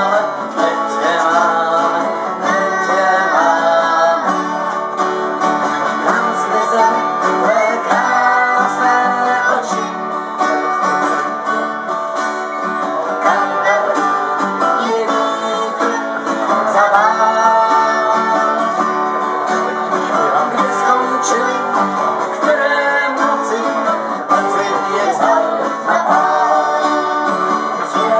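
Acoustic guitars strummed while a man and a boy sing a Czech tramp-style folk song.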